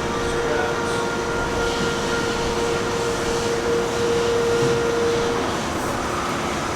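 Steady road and drive noise of a moving vehicle: an even rumble and hiss with a steady whine on top that fades out about five seconds in.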